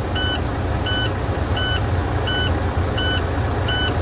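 In-cab warning alarm of a 2013 International truck beeping steadily, about one and a half short beeps a second, the alarm that sounds with its active stop-engine light and DPF fault. A steady low engine rumble runs beneath.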